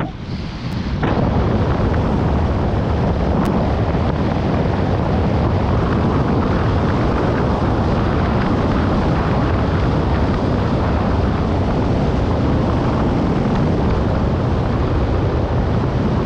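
Wind rushing over a helmet-mounted GoPro Hero 5 on a road bike descending a steep hill at high speed: a loud, steady roar that dips briefly in the first second.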